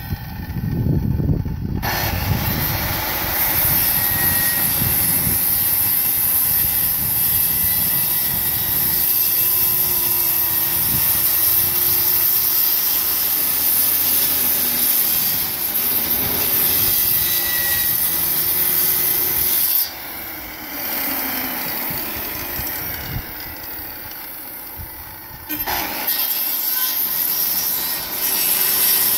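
Corded circular saw running and cutting through plywood sheet, a steady high whine with the rasp of the blade in the wood. It eases off for several seconds about twenty seconds in, then cuts again for the last few seconds.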